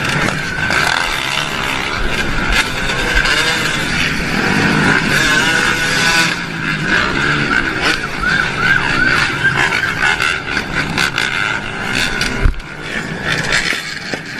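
Motorcycle engine running while riding, its pitch rising and falling with the throttle over steady road and wind noise, with a sudden jolt about twelve seconds in.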